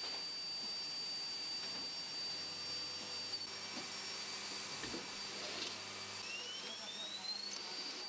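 Automated spacer-bar feeding and processing machine whining: a steady high-pitched whine breaks off a few seconds in, then about six seconds in a whine rises in pitch and levels off, like a drive spinning up, with a few faint mechanical ticks.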